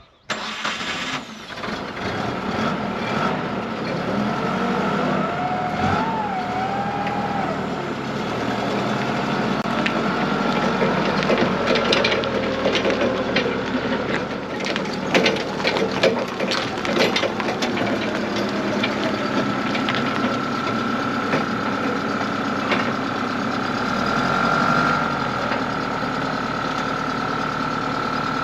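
Heavy machine's engine running steadily, with a steady high whine and repeated knocks and clanks, and a brief squeak about six seconds in.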